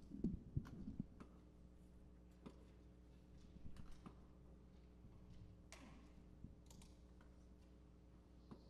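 Faint clicks and knocks of musicians handling electric guitars and gear over a steady low electrical hum from the sound system. The louder knocks come in the first second.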